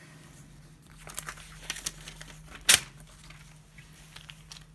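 Scissors cutting through glossy magazine paper: small scattered snips and paper rustling, with one sharp, louder click a little past the middle.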